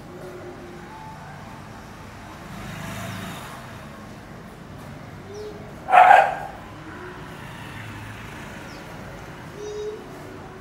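A street dog gives one short, loud bark about six seconds in, over steady outdoor traffic noise that swells briefly around three seconds in as a vehicle passes.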